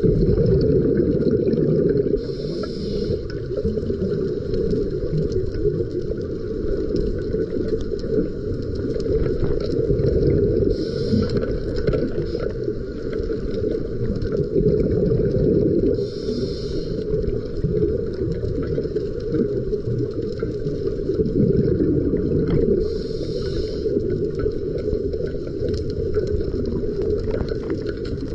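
Underwater ambience picked up by a camera: a steady low rumble of boat engines carried through the water, with a brief higher hiss four times, about every five to seven seconds.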